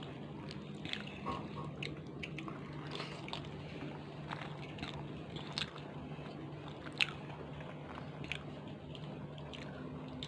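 Someone eating pakhala bhata, rice soaked in water: soft chewing with scattered wet mouth clicks and squishes, over a low steady hum.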